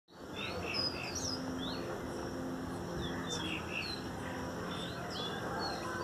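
Small caged songbird singing a quick, continuous run of short chirps and whistled notes, some sliding up and some sliding down in pitch.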